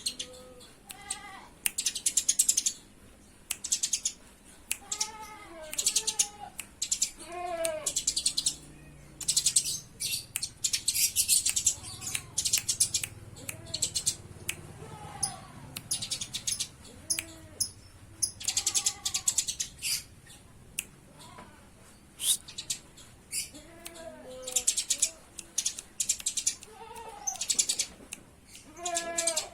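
Eurasian tree sparrows chattering in fight calls: bouts of rapid, harsh, high chirps, one after another, with shorter arching calls between them.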